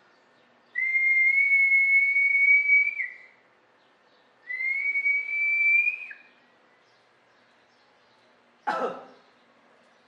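A person whistling two long, steady notes, each rising slightly in pitch, the first about two seconds long and the second about one and a half. A short, sharp sound follows near the end.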